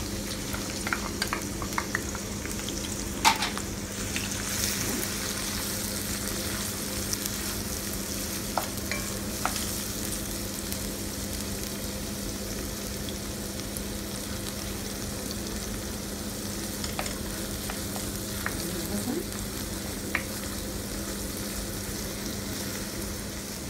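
Chopped onion sizzling in hot oil in a non-stick frying pan, stirred with a wooden spoon that clicks and scrapes against the pan now and then, loudest about three seconds in. A steady low hum runs underneath.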